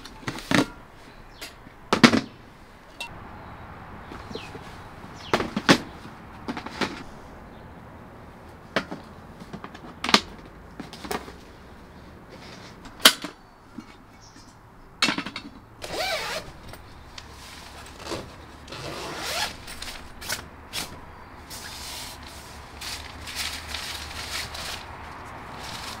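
Camping gear being unpacked and set out by hand: scattered sharp knocks and clunks as gas canisters, a case and a portable butane stove are handled and put down. Rustling of fabric and wrapping takes over through the second half.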